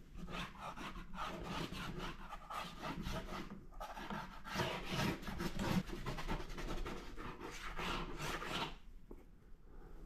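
Paintbrush scrubbing and dragging across paper in quick, repeated rasping strokes, easing off near the end.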